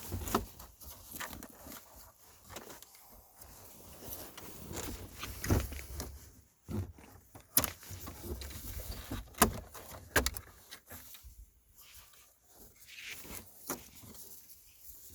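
Irregular clicks, knocks and rattles of tools and parts being handled while working on a car's shifter assembly, with a few sharper metallic clicks in the middle stretch.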